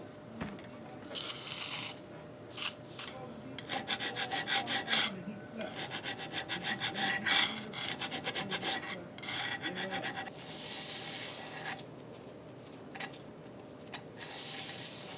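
Hand file rasping on metal in back-and-forth strokes, deburring the T-slot of a milling-machine table. The middle holds runs of quick, short strokes, several a second; near the end come a few longer, slower strokes.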